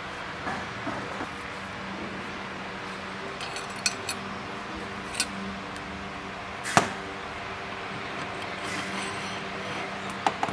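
Steel parts clinking and knocking together as a ball bearing and a shaft assembly are handled and fitted into a welded steel bracket: a handful of sharp metallic clicks, the loudest about two-thirds of the way through. A steady low hum sounds underneath.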